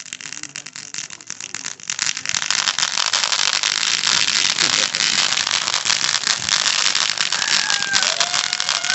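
Fireworks crackling: a dense run of rapid pops and crackles that grows louder about two seconds in and keeps going thickly.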